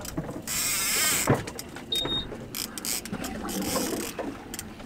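Big-game fishing reel being cranked against a hooked tuna, clicking and ratcheting steadily, with a brief louder rush of noise about half a second in.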